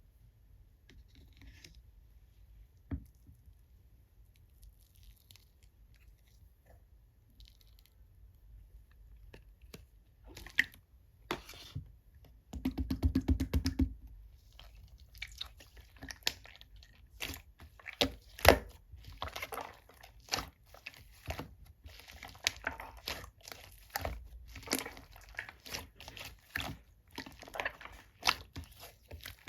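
Whipped-cream slime being pressed, stretched and squished by hand, giving a run of small crackling, popping clicks. The clicks are sparse at first and grow denser and louder after about ten seconds.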